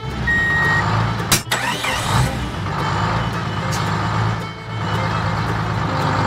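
Tractor engine running steadily at low revs, with a short beep near the start and a sharp knock about a second and a half in.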